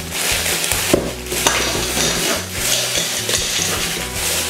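Clear plastic packaging bag crinkling and rustling as it is unwrapped by hand, with a few sharper crackles.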